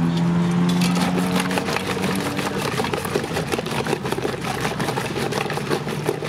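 Lassi being churned by hand: a wooden churning stick spun back and forth in an aluminium pot, giving a fast, uneven clatter of clicks and knocks as the frothing yoghurt is whipped. A steady engine drone sounds under it for the first second and a half or so, then fades.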